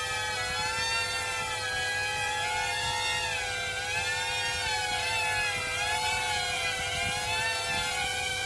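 Small XK X100 quadcopter's motors and propellers whirring in flight, their pitch wavering up and down as the throttle shifts to hold the drone in the air.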